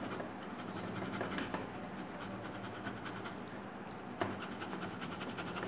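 A tomato half being grated by hand on a metal box grater with a plastic frame: a quick run of repeated scraping strokes, with one sharper knock about four seconds in.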